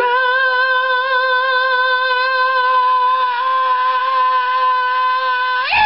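A person's voice singing one long held high note, wavering slightly, then sliding sharply up in pitch at the very end.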